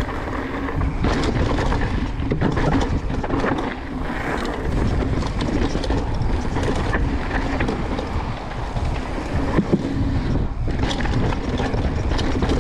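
Transition Sentinel mountain bike ridden down a trail: a steady rush of wind on the microphone and tyre noise, with frequent clicks and clatters from the bike over rough ground.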